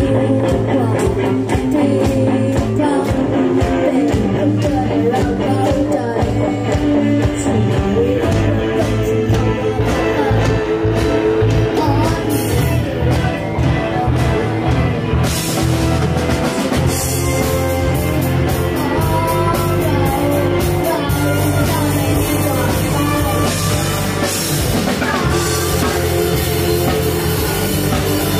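Rock band playing a song: a boy's sung vocal over electric guitars and a drum kit, with steady drum beats throughout.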